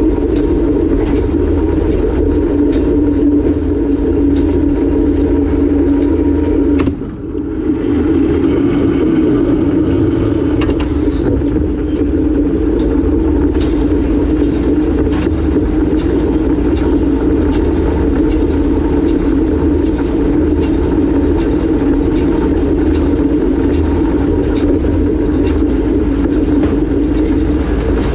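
Farm tractor engine running steadily while driving, a loud, even drone with a low rumble. The sound dips briefly about a quarter of the way through, then carries on.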